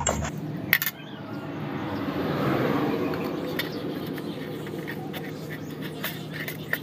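Metal spoon scraping and clicking against a stainless steel plate as ripe mango flesh is scraped off the peel, with a sharp knock about a second in and a few lighter clicks later. A broad rushing noise swells and fades in the middle.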